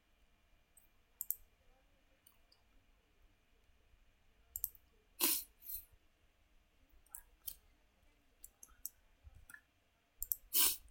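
Computer mouse buttons clicking: scattered single sharp clicks, with two louder ones about five seconds in and near the end.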